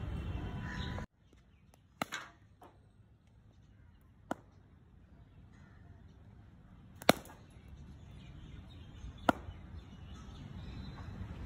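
Sharp cracks of a cricket ball striking bat and concrete practice pitch: four single knocks a couple of seconds apart, the last two the loudest.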